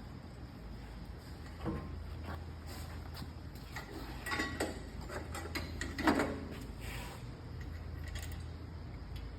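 Metal clicks, rattles and knocks of band saw blade guards and access panels being handled and fitted back in place, with a sharper knock near two seconds and the loudest knock about six seconds in. The saw itself is not running.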